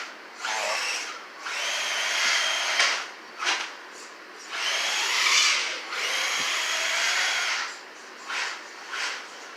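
RC truck's motor and gears whining in stop-and-go bursts as it is driven, two longer runs of a couple of seconds each with short blips of throttle between them.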